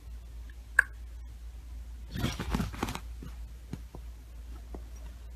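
Fabric rustling as cushions and blanket shift, a short crackly rustle about two seconds in lasting under a second, with a few soft clicks around it over a low steady hum.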